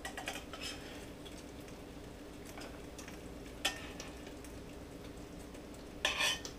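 Flounder sizzling faintly in butter in a stainless steel frying pan while it is stirred and scraped, with a sharp clink about three and a half seconds in and a louder scrape of a utensil against the pan near the end.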